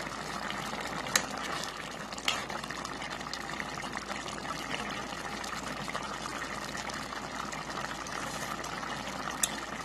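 Pot of ground beef and vegetable stew in tomato broth boiling, a steady bubbling, with a few light clicks of a spoon against the pot.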